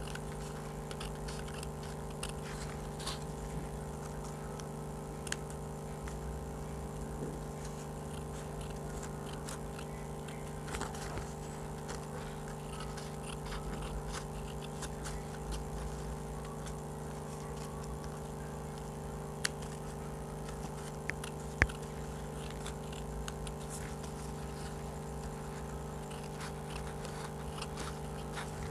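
Small scissors snipping colour paper, a run of faint cuts and rustles with two sharper clicks of the blades about two-thirds of the way through, over a steady background hum.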